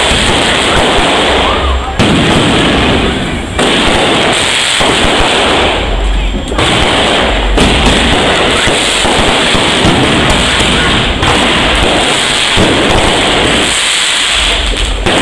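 Aerial fireworks going off in a continuous loud barrage of bangs and crackling, with a few brief lulls.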